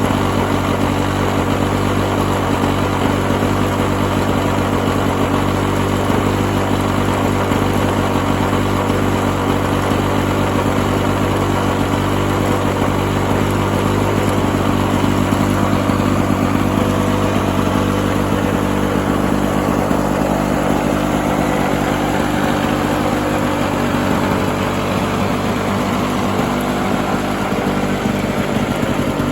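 Lawn-Boy 5247 mower's engine running steadily on its own, a steady engine note with a slight change in tone about two-thirds of the way through. It is freshly back in running order, having kept running after a little extra priming.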